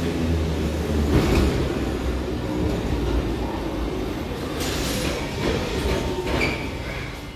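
Metro train running along the platform with a heavy rumble, a few wheel clacks over the rail joints and a short wheel squeal near the end. The sound eases off as the train moves on.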